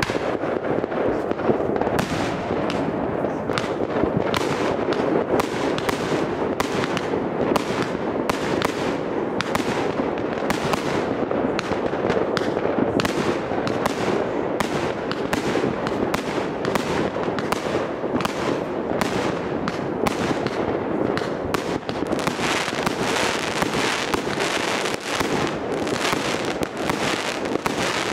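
Fireworks going off: aerial shells bursting over a continuous din of bangs and crackle, with sharp reports about twice a second. About three-quarters of the way through, a hissing crackle grows stronger.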